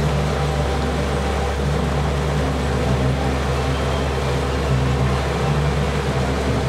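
Boat engine running at a steady cruise: an even, low drone with a steady hiss above it.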